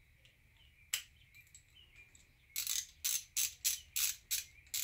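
Hand ratchet turning a timing-chain tensioner's 8 mm bolts a few turns in, not yet fully tight. After a single click about a second in, a quick run of ratcheting clicks starts about two and a half seconds in, about four bursts a second.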